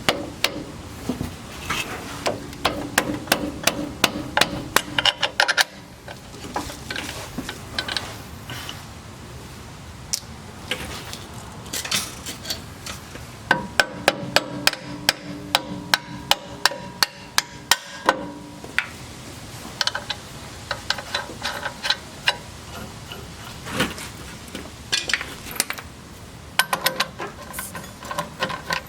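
Hammer blows on steel suspension parts, coming in quick runs of about three strikes a second with pauses between. Some of the strikes ring.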